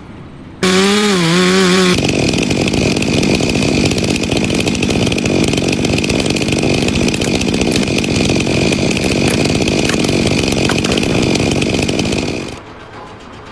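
A power tool such as a saw running steadily for about ten seconds, then dying away near the end. Just before it, a brief wavering pitched sound.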